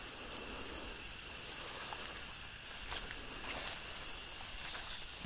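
Night insect chorus of crickets and cicadas: a steady high-pitched hiss made of several held tones, with a few faint clicks now and then.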